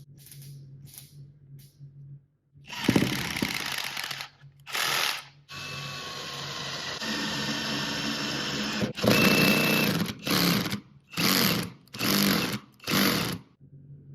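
Cordless drill running in bursts as the trigger is squeezed and released: a run of about a second and a half, a longer run of about three and a half seconds in the middle, then four short bursts near the end.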